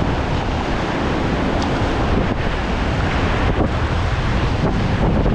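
Whitewater rapids of a river running at a medium-high level, rushing loudly and steadily, with wind buffeting the microphone.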